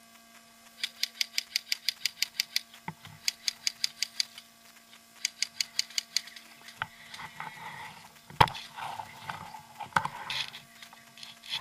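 Three bursts of rapid, evenly spaced sharp clicks, about seven or eight a second, from an airsoft electric rifle firing on full auto; the first burst lasts under two seconds, the next two about a second each. After them come rustling of bandage and gear handling and two sharp knocks.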